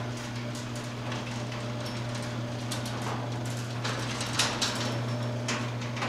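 LiftMaster garage door opener running with the door in travel: a steady motor hum under irregular clicks and rattles from the rail and door.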